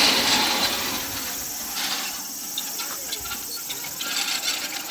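Metal rollers of a long roller slide rattling and whirring under riders sliding down it, with a run of quick clicks in the middle.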